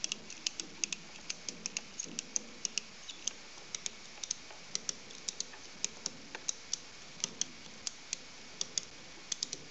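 Ratchet on a lifting strap being cranked, giving quick light clicks about three or four a second in spurts, as the strap draws up to raise a fiberglass pickup truck topper.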